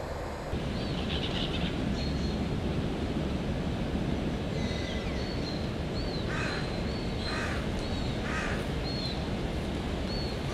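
A crow cawing three times, about a second apart, while small birds give short, high calls over a steady rushing background.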